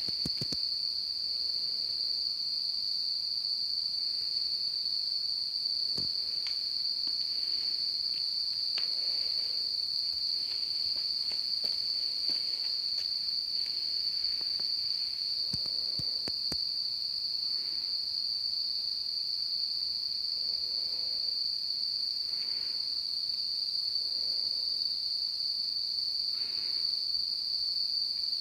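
Loud chorus of insects at dusk: one steady, unbroken high-pitched drone that never pauses, with a few faint clicks over it.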